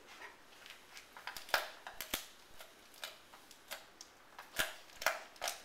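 A dog chewing and gnawing on a chew held between its front paws: irregular sharp crunching clicks, some louder than others, with short pauses between them.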